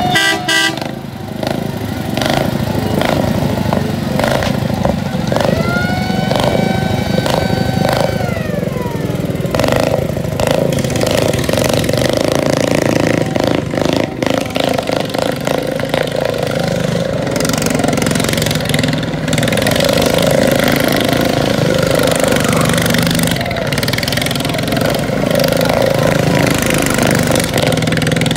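Small engines of Shriners' miniature parade cars running as they drive past. Several seconds in, a wailing tone rises, holds for about three seconds, then falls away.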